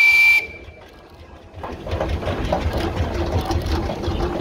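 A steam roller's whistle sounds and cuts off about half a second in. After a brief lull, a passing steam engine's rhythmic mechanical beat and rumble start up at about one and a half seconds.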